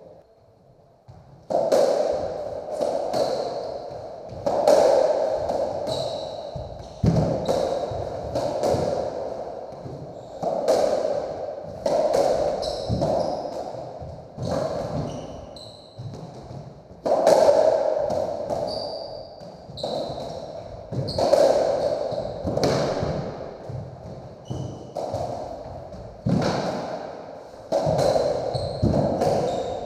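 Racketball rally in a squash court: the ball smacked by the racquets and slapping off the walls and wooden floor, a sharp hit every second or so, each ringing in the enclosed court. The play starts about a second and a half in.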